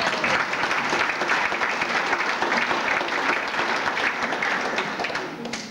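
Audience applauding: many hands clapping in a dense patter that tails off near the end.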